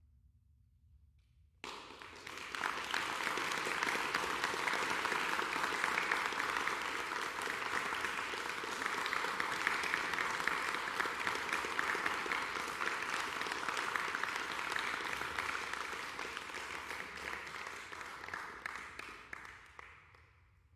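The last piano note fades, then audience applause breaks out suddenly about a second and a half in, holds steady and dies away near the end.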